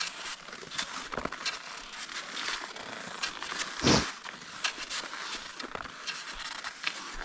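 Cross-country skis sliding and crunching over snow, with irregular crackles and clicks and one louder thump about four seconds in.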